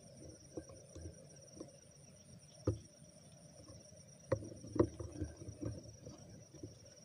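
Night insects, crickets, trilling steadily at two high pitches, with irregular thuds and rustles over them; the sharpest knock comes a little under 3 seconds in, and a cluster follows past the middle.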